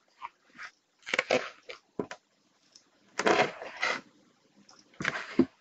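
Pages of a thick glossy booklet being flipped by hand: several short bursts of paper rustling and flapping.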